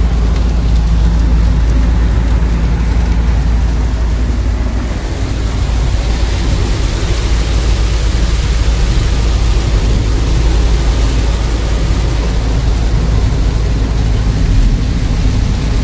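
Rain falling: a steady hiss that gets louder about six seconds in, over a strong, constant low rumble.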